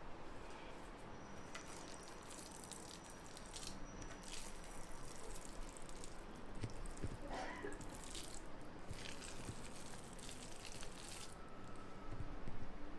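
Wet squishing and scraping of a spatula stirring thick fermented paste in a plastic tub, with scattered soft clicks.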